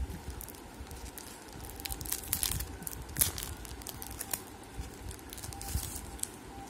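Packaging crinkling and rustling as it is handled, with scattered clicks and a cluster of louder crackles about two to three seconds in.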